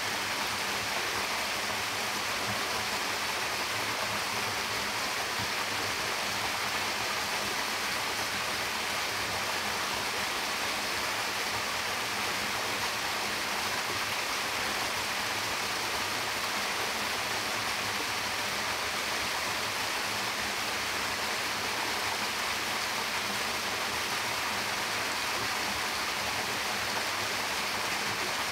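Stream water running, a steady, even rushing.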